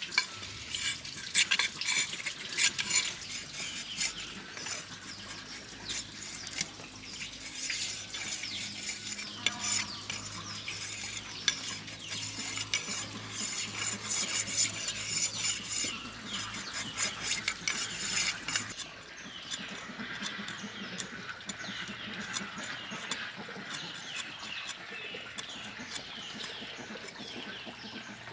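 Kitchen clatter: utensils clinking and scraping against a pot or dishes, with stirring and a low steady hum under it. About two-thirds of the way through, the hum stops and only lighter, scattered clicks remain.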